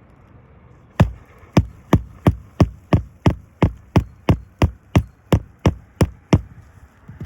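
A hammer striking a roofing nail into an asphalt shingle, about sixteen even blows at roughly three a second. The blows start about a second in and stop shortly before the end.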